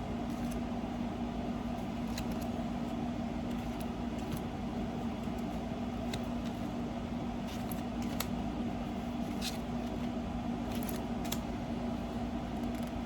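Steady room hum with a constant low tone, over which come a few faint light clicks and taps of cardstock cards being handled and sorted.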